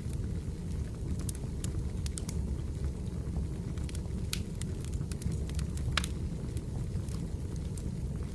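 Wood fire burning: a steady low rumble of the flames with irregular sharp crackles and pops, the loudest about six seconds in.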